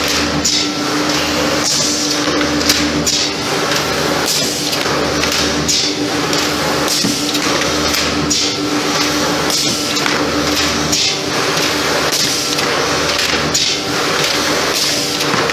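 ZDJ 1000 automatic-feed board slotting machine running: a steady hum with a low pulse about every second and a half as it cycles, and sharp clicks and knocks throughout.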